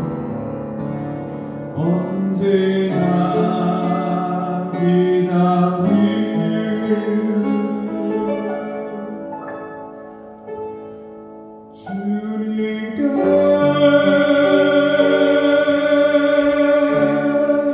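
A man singing a slow hymn to his own upright piano accompaniment. After a brief softer passage, the music swells and settles on a long held note in the last few seconds.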